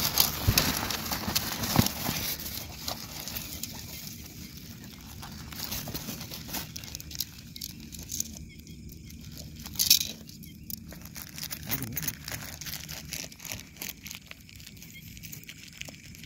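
Clear plastic wrapping and nylon tent bag rustling and crinkling as tent poles are pulled out and unwrapped by hand, with scattered light clicks and knocks. One sharp click stands out about ten seconds in.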